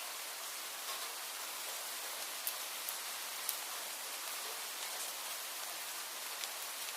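Steady rain falling as an even hiss, with a few sharp, louder drips standing out, the clearest a little after halfway through.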